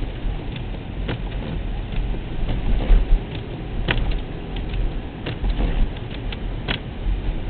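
Car driving on a snowy highway, heard from inside the cabin: a steady low rumble of road and engine noise, with irregular sharp clicks and taps over it.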